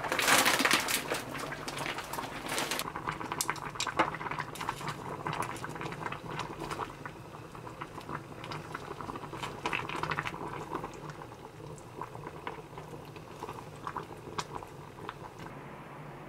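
Tteokbokki sauce boiling in a small saucepan, a thick bubbling and popping that is densest for the first few seconds and then thins to scattered pops. Chopsticks stir through the pot partway in.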